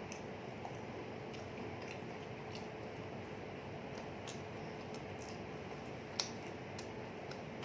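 Quiet eating: faint chewing of dry, hard pizza, with a few scattered small mouth or tableware clicks over steady room noise and a faint hum. The most distinct click comes about six seconds in.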